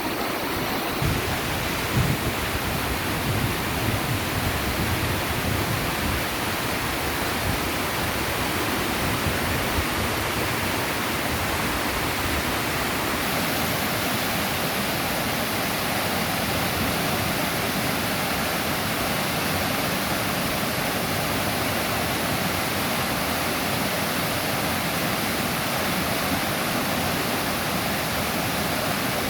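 Mountain stream swollen by days of heavy rain, its high water rushing in a steady, full torrent.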